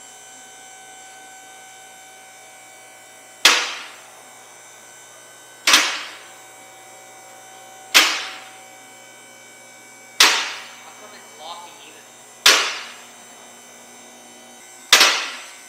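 A steady electric hum with six loud, sharp clacks at even intervals of about two and a quarter seconds, each ringing out briefly.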